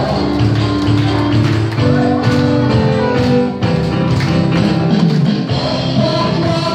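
Loud, upbeat dance music with a steady beat, playing in a large hall.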